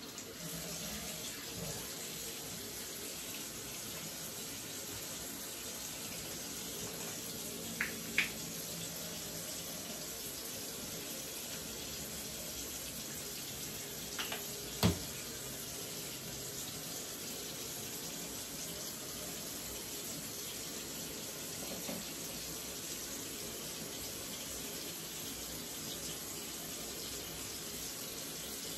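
Bathroom sink tap running steadily, water splashing into the basin as hair bundles are rinsed under it. A few sharp knocks stand out, a pair about eight seconds in and another about fifteen seconds in.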